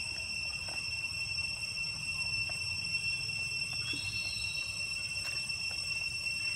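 Steady high-pitched insect drone over a low outdoor rumble, with a short rising chirp about four seconds in and a few faint clicks.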